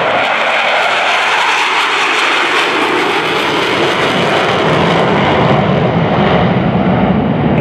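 Jet noise from four F/A-18 Hornets flying over in formation, each powered by twin General Electric F404 turbofans: a loud, steady rush. The low end grows heavier from about five seconds in.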